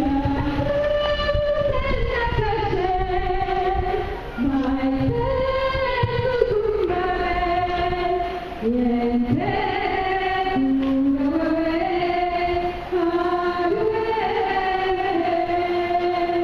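Vocal music: voices singing long held notes in two parts, one low and one higher, sliding from note to note.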